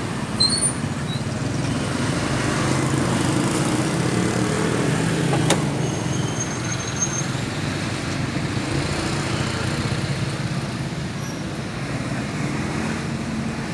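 Motor scooter engine running steadily, with one sharp click about five and a half seconds in.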